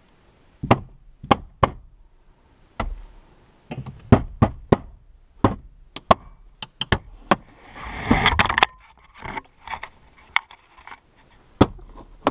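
Hands thumping and pressing on the plastic dashboard top of a Skoda Fabia, forcing the passenger airbag down into its place in the dash. It is a run of irregular knocks, with a brief scraping rustle about eight seconds in.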